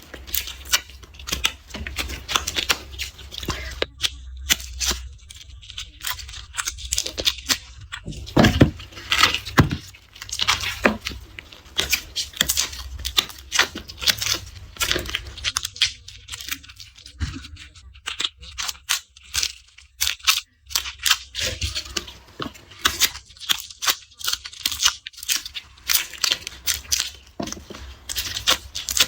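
Papery garlic skins crackling and tearing as cloves are peeled by hand: a constant, irregular run of crisp crackles, with a few stronger snaps about eight to ten seconds in.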